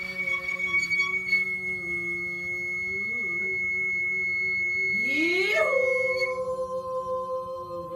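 Nagauta singer holding one long sung note with a slight waver about three seconds in, then sliding up to a higher note a little past five seconds in and holding it.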